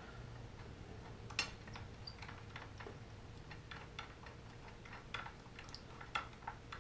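Scattered light clicks and taps of metal tools or parts being handled during work on a motorcycle's front wheel, a few irregular clicks a second, over a faint steady low hum.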